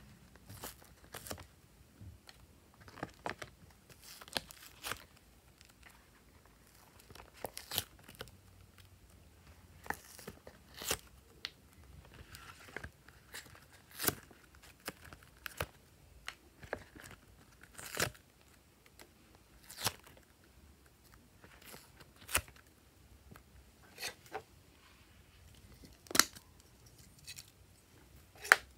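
Thin plastic heart mould crinkling and clicking as soft clay hearts are pressed and peeled out of it: scattered sharp crackles, with two louder snaps near the end.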